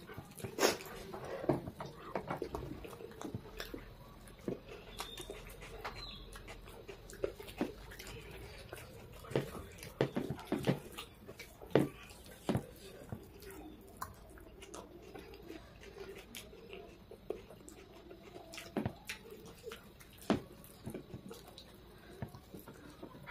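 Two people eating pav bhaji with their fingers: wet chewing and mouth clicks, with irregular sharp clicks and taps of fingers and bread on the plates.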